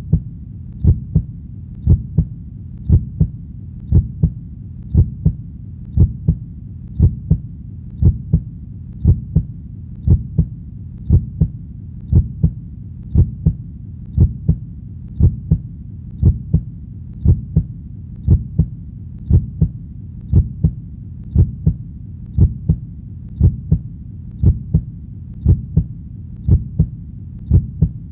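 Heartbeat going in steady lub-dub pairs, about one beat a second, over a low, steady rumble between beats.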